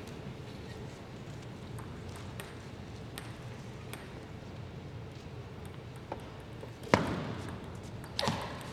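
Table tennis ball strikes over a steady hushed arena background: a faint tick about six seconds in, then a loud sharp click a second later and another just before the end.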